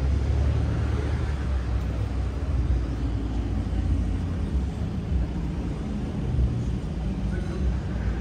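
City street traffic: cars driving past with a steady low engine and tyre rumble.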